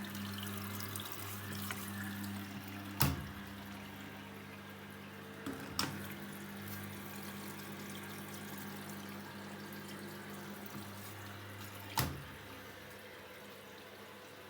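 Hotpoint Ariston washing machine running, with a steady motor hum under the rushing, sloshing sound of water. Three sharp knocks come at intervals, about 3, 6 and 12 seconds in.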